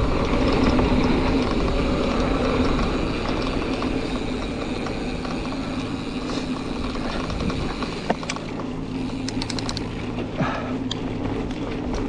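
Mountain bike rolling down a dirt trail, a steady rumble of tyres and air. Several sharp clicks in the last few seconds come from the Giant Crest 34 suspension fork, a clicking the rider takes for a fault.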